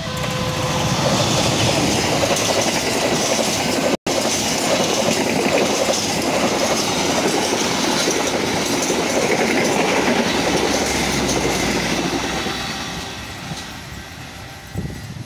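Argo Parahyangan passenger train, hauled by a diesel locomotive, passing close at speed: a loud, steady noise of wheels on the rails that fades from about twelve seconds in as the train draws away. A horn note dies out in the first second.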